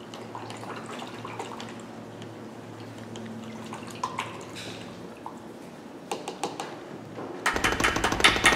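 Paintbrush swished and dabbed in a plastic cup of water, with small drips and splashes. Near the end, rapid loud knocking as the wet brush is beaten against the easel leg to shake the water out of it.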